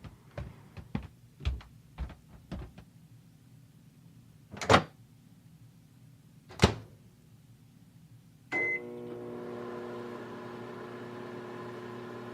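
A run of light knocks, then two loud thunks a couple of seconds apart. Later a short beep, and a microwave oven starts up and hums steadily.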